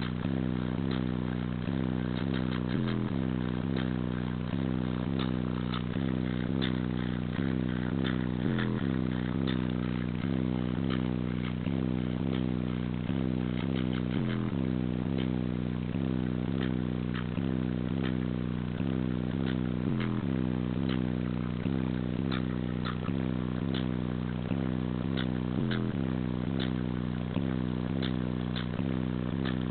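Single 15-inch RE Audio MT car subwoofer playing a bass-heavy electronic track loudly, in a fast repeating pattern of bass hits about three a second with a deeper note every few seconds. Short rattling clicks sound over it.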